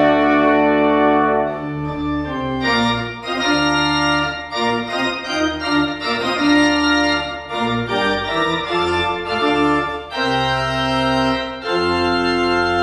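Church pipe organ playing alone: a series of loud sustained chords over deep pedal bass notes, changing about every second.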